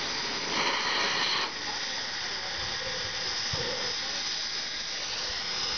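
Steam hissing from NKP 765's boiler-feed injector, a steady rush with a louder burst for about a second near the start. The injector was opened too fast and blows steam instead of feeding water, going by the sound.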